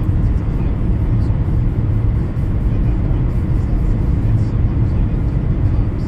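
A car driving on a wet road: a steady low rumble of road and engine noise, with faint light ticks now and then.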